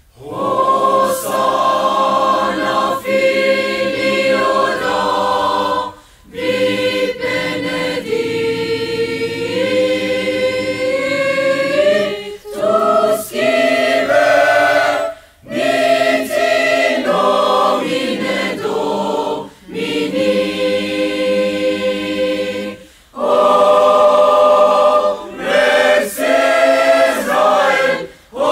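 Choir singing sustained phrases, with short pauses between them.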